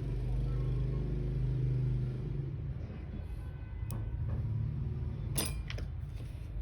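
A steady low rumble with a sharp click about four seconds in and a quick cluster of clicks about a second later.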